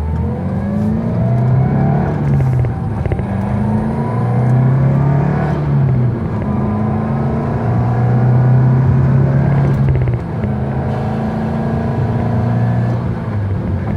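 2022 Subaru WRX's turbocharged 2.4-litre flat-four with a turboback exhaust, accelerating through the gears: the engine note rises, drops back at gear changes about two, six and ten seconds in, then climbs again.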